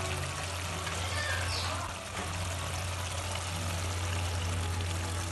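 Thick, reduced fish-curry gravy bubbling steadily in a pot on a gas burner, a continuous wet simmering noise, over a steady low hum.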